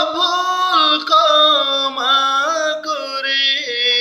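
A man singing a Bengali Islamic song with no accompaniment: one long, held melodic phrase that bends up and down in pitch, with no clear words.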